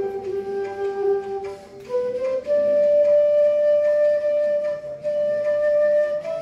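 Bansuri (bamboo transverse flute) playing a slow melody of long held notes: a low note for about the first two seconds, then a higher note held for about three and a half seconds, stepping up once more near the end.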